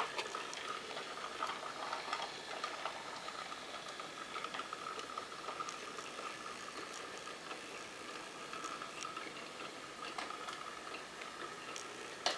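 Battery-powered toy locomotive running on a wooden train track: its small electric motor whirs steadily, with scattered light clicks and a sharper click near the end.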